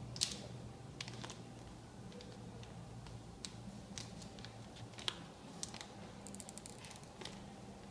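Thin clear plastic bag film crinkling and crackling as it is handled and pulled at its freshly heat-sealed edge: scattered sharp crackles, with a quick run of them near the end, over a faint steady low hum.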